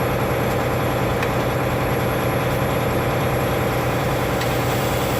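Heavy truck's diesel engine idling steadily, an even low drone with no change in speed.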